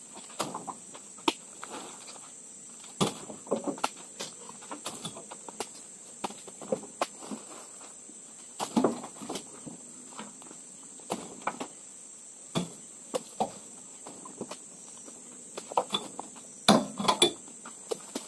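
Irregular knocks and heavy thuds as oil palm fruit bunches are speared with a spiked pole and thrown into a pickup truck's bed, landing on the load, with a cluster of louder thuds about nine seconds in and again near the end. A steady high-pitched insect drone runs underneath.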